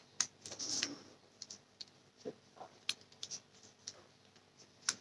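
Thin hook pick and tension tool working the pins of a pin-tumbler padlock: faint, irregular small metallic clicks and ticks as the pins are probed and set, with a sharper click near the end.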